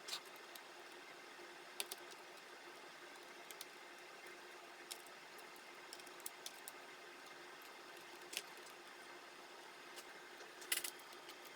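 Faint steady hum with a few small, sharp clicks and taps scattered through it, and a short cluster of clicks near the end.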